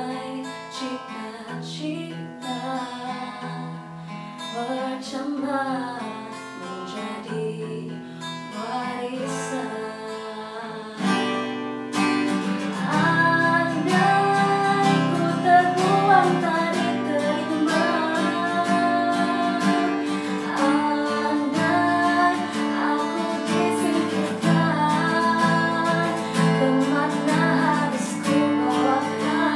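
Acoustic guitar played with a woman singing. The guitar is softer at first, then is strummed louder and fuller from about twelve seconds in.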